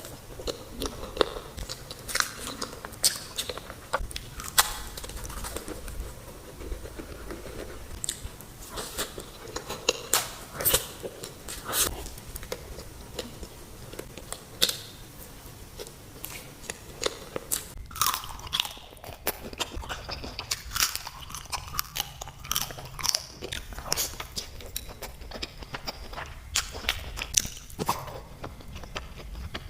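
Close-miked eating sounds: crunchy bites and chewing, a quick, irregular run of sharp crunches and clicks.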